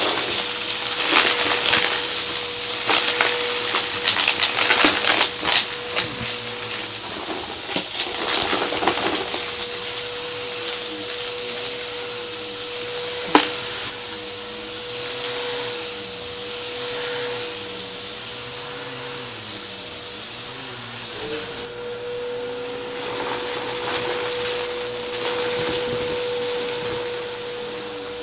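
Vacuum cleaner running with a steady motor whine, sucking up a dry crunchy mess: dense crackling and rattling of debris going up the nozzle for the first nine seconds or so, then mostly the motor and airflow. A single sharp click about 13 seconds in, and the motor tone dips briefly around 21 seconds before settling back.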